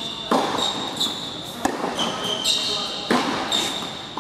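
Tennis ball struck by rackets and bouncing on an indoor hard court: sharp pops about every second and a half. Between them come short high squeaks of shoes on the court surface.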